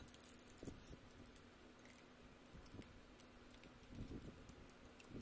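Faint chewing and small scattered clicks and crackles of crab and shrimp shells picked apart by hand.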